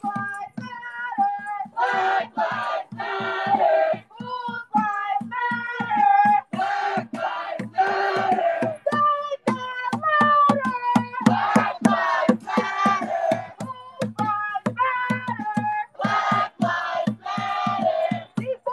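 Singing over a fast, steady beat of sharp hits.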